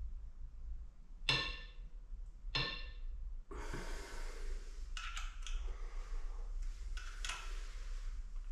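Hand tools on engine metal: two ringing metallic clinks a little over a second apart, then a rustling hiss broken by several sharp clicks, as the bolts of a vernier cam pulley are cracked loose and the pulley is moved a degree to adjust cam timing.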